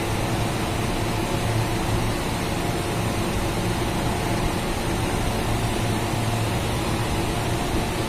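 Refrigerated chiller's compressor and condenser fan running steadily: an even low hum with a rush of air, the unit still cooling down toward its 4-degree cut-out temperature.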